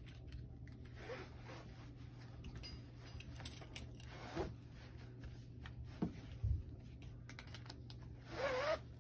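Canvas gait belt being fastened around a waist: the webbing rustling and sliding through its metal buckle, with small clicks and scrapes.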